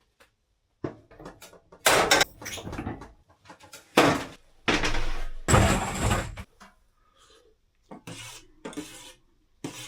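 A spoon scraping and knocking against a cooking pot while thick soup is stirred, in a run of irregular strokes with short pauses between them.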